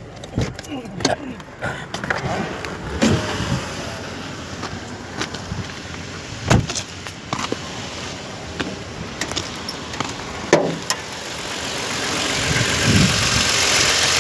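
Scattered clicks and knocks of parts and tools being handled during hand work on a car, with a steady hiss that grows louder near the end.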